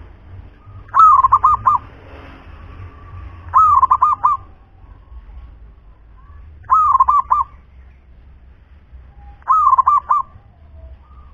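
Zebra dove (perkutut) cooing: four separate coo phrases about three seconds apart, each a longer first note run straight into three or four quick notes.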